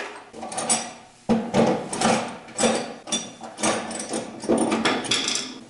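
Hand tools knocking and clattering against a loose blower pulley and its metal housing while its set screw is worked on: a string of about eight sharp knocks, irregularly spaced.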